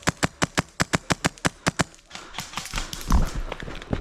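Airsoft rifle firing a rapid string of shots, about six or seven a second, that stops about two seconds in. Rustling and low thumps follow.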